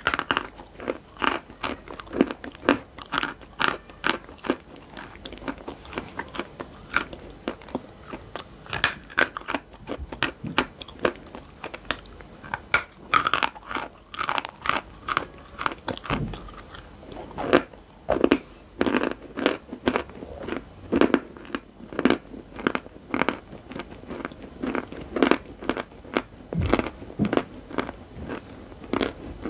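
Chalk being bitten and chewed right at the microphone: a dense, irregular run of sharp crunches as pieces of dry chalk snap and grind between the teeth.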